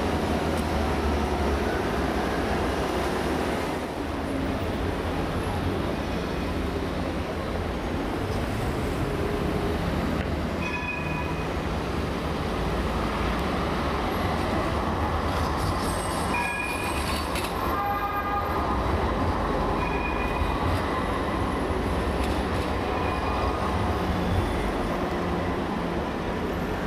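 Modern low-floor electric trams running along street track among city traffic: a steady rumble of the trams and passing cars, with several brief high-pitched tones from about ten seconds in.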